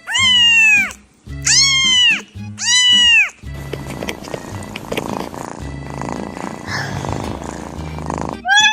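Three drawn-out cat meows in quick succession, each rising and then falling in pitch, over background music with a bass line. They are followed by a rough, noisy stretch lasting about five seconds, and another meow starts right at the end.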